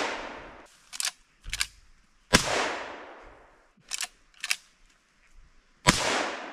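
Henry .22 Magnum lever-action rifle fired twice, about three and a half seconds apart, each shot trailing off in a long echo. Before each shot come two short clicks, the lever being worked to chamber the next round.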